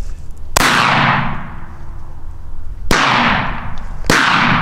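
Three gunshots, about 0.6, 2.9 and 4.1 seconds in, each echoing away over about a second.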